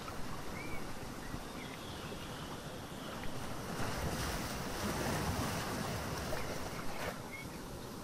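Ocean surf: a steady wash of water, with a wave swelling and breaking about halfway through before easing back.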